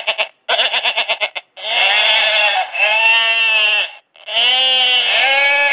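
Motorcycle sound-effect horn, a speaker driven by a sound module, playing a recorded animal bleat over and over while its button is held down. It is loud. The first call breaks into rapid pulses, followed by two long drawn-out bleats.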